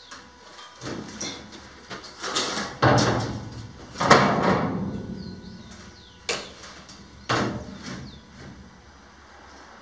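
Corrugated steel container sheet being handled and knocked against a steel frame: a series of irregular metallic knocks and clangs, the two loudest about three and four seconds in, each ringing away over a second or so.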